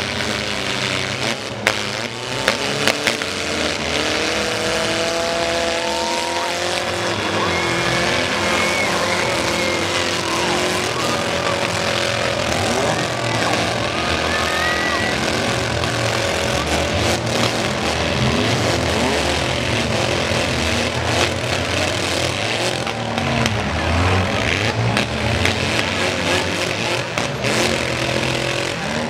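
Four-cylinder demolition derby cars revving their engines up and down as they ram one another, with a few sharp crashes in the first three seconds.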